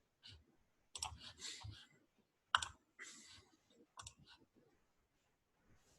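Faint, irregular clicks and taps, a few at a time with short pauses between, like keys or a mouse being pressed.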